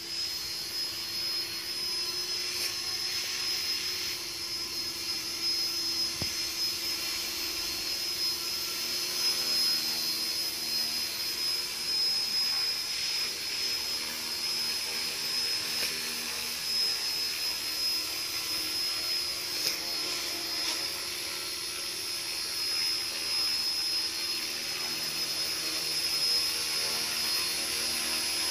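JR Forza 450 electric RC helicopter hovering: a steady high-pitched whine from its brushless motor over the hum of the spinning rotor, run at a low head speed.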